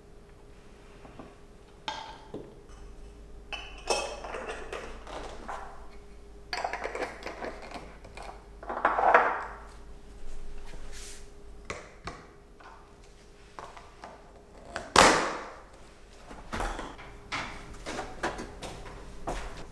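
Kitchen handling sounds: a spoon scraping and packing minced garlic into small glass jars, with clinks of glass and the metal screw lids, in a series of separate scrapes and knocks. The loudest are a scrape about 9 seconds in and a sharp knock about 15 seconds in, over a faint steady hum.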